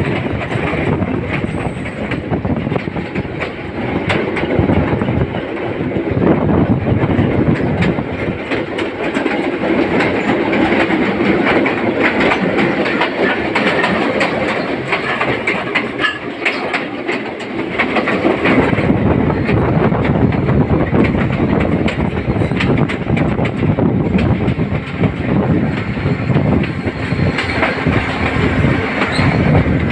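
Podi Menike passenger train running along the track, heard from a carriage door: a steady rumble of wheels on rails with a continuous clickety-clack of rail joints. The low rumble thins briefly a little past the middle, then returns.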